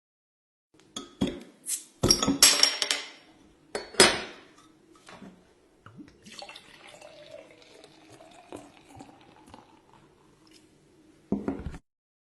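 A drink poured into a glass, with glassware clinking and knocking: a few knocks, then a loud splashing burst and a sharp knock, then a softer stretch of liquid running and trickling. A short final burst cuts off abruptly.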